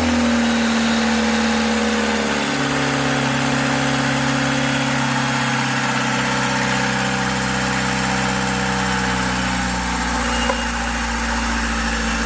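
Old marine diesel engine in a sailboat running steadily at idle, freshly revived after sitting unused for years.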